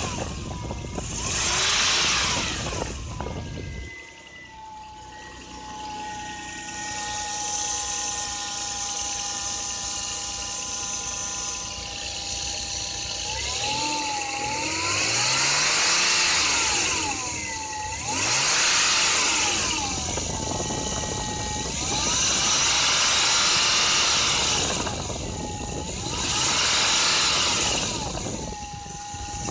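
Toyota 1JZ-GE 2.5-litre inline-six revved up from idle and let fall back about five times, with a steady whine at idle between the revs. The owner says a knock comes in when the revs reach about three thousand but is absent at idle, and puts it down to a spun bearing shell.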